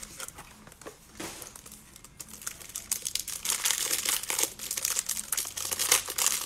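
Crinkly plastic wrapper on a stack of football trading cards being picked at and peeled open by hand, sparse at first, then thicker and louder over the second half.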